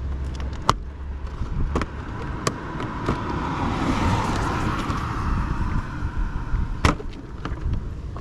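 Plastic motorcycle fairing panel being pulled free, with four sharp clicks as its clips let go. A broad rush of noise swells and fades in the middle.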